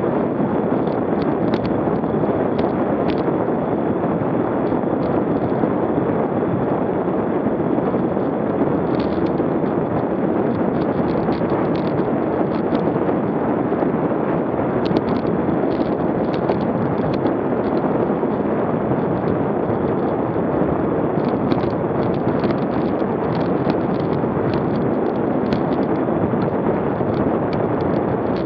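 Steady rush of wind on the microphone of a camera mounted on a bicycle riding at about 20 mph, with scattered faint ticks.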